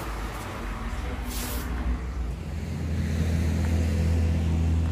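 A road vehicle's engine running close by, its low hum growing louder and steadier about halfway through, with a short hiss of air about a second and a half in.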